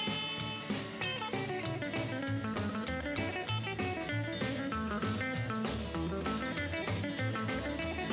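Rock and roll music: an instrumental break between sung verses, led by guitar over a steady bass and drum beat.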